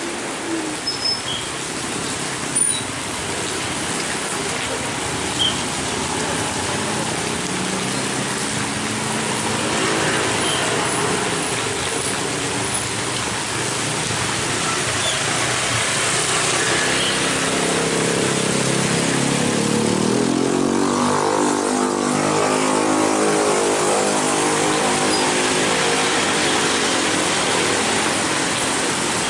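Road traffic crossing a railway level crossing on a wet road: motorcycle and car engines over a steady hiss of tyres. A Hino 500 truck's diesel engine grows louder and rises in pitch through the middle as the truck pulls across the tracks.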